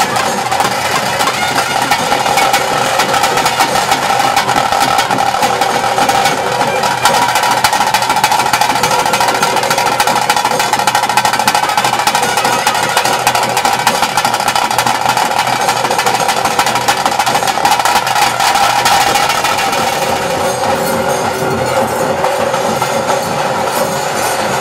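Traditional ritual music: dense, fast drumming under steady held notes, loud and even throughout, the drumming easing a little near the end.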